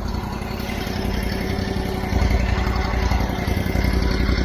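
Engine of construction equipment running steadily, a little louder from about two seconds in.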